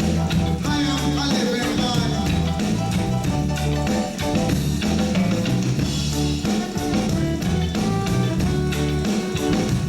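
Live reggae band playing: a steady bass line and drum kit under guitar, with some singing.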